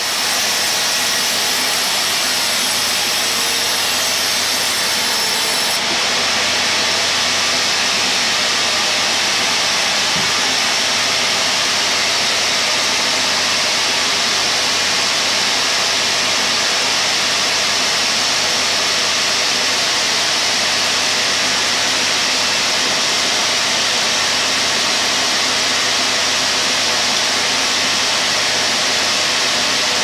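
Band sawmill running, its vertical blade ripping lengthwise through a teak log as the carriage feeds it past: a steady, loud sawing noise.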